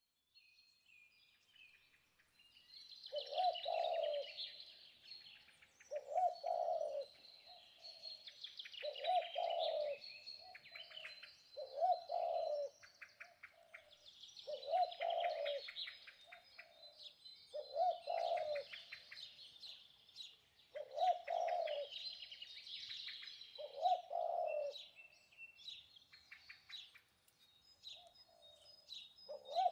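Small birds chirping and twittering, with a dove cooing over them in a call of about a second, repeated roughly every three seconds.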